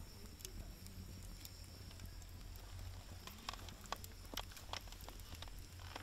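Wood fire crackling: scattered sharp snaps and pops, a few louder ones about three and a half to five seconds in, over a faint low hum.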